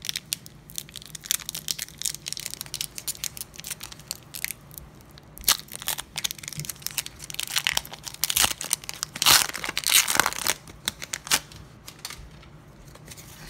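Foil wrapper of a Pokémon TCG booster pack being crinkled and torn open by hand, a run of sharp crackling tears that grows loudest about two-thirds of the way through, then dies down near the end.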